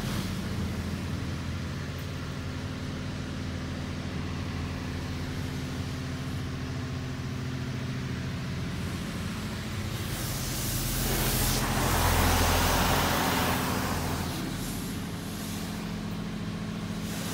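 A WashWorld Razor touchless car wash running, heard from inside the car: a steady low machine hum, with a hissing spray sweeping over the car that swells about ten seconds in, peaks, fades, then returns more faintly near the end.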